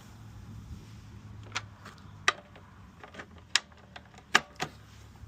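A handful of sharp, separate clicks and knocks of car parts and tools being handled, over a faint low hum.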